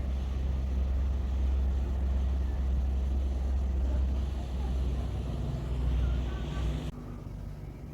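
Steady low engine rumble of a ship passing close by, with an even bass hum, cutting off abruptly about seven seconds in.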